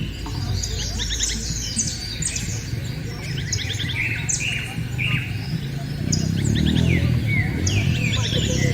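Dense chorus of many small birds chirping and trilling over one another, over a low background rumble that grows louder about six seconds in.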